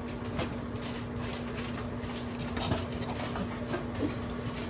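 Popcorn kernels popping in a paper bag inside a running microwave oven: irregular pops over the oven's steady hum.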